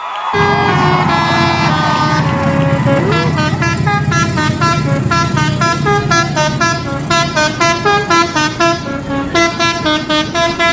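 Multi-tone telolet horn playing a quick melody of short stepped notes over a steady low engine rumble. The notes turn more clipped and pulsing in the second half.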